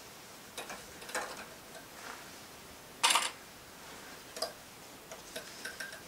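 Scattered light clicks and taps from handling a denim jeans hem and its plastic sewing clips, with one short, louder rustle of the fabric about three seconds in. The sewing machine is not running.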